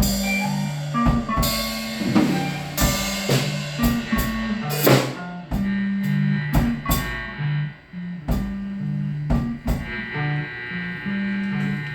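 Band music: a drum kit plays a beat of kick and cymbal hits over a low bass line that steps from note to note, with guitar.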